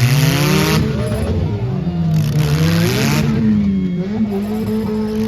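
Several demolition derby cars' engines revving at once, their pitches rising and falling against one another. Two stretches of rushing noise come over them, one at the start and another about two seconds in.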